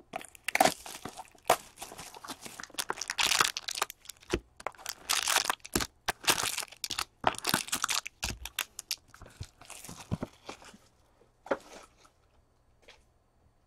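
Plastic shrink wrap crinkling and tearing as a sealed box of trading cards is unwrapped, then the box opened and its foil-wrapped packs handled. The crackling rustles and sharp clicks come thick and uneven, then die away near the end.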